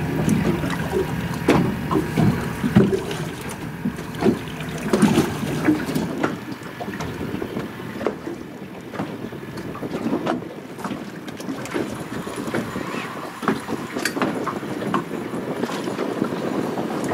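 Small waves lapping and slapping against the hull of a fiberglass boat, with irregular knocks and wind on the microphone.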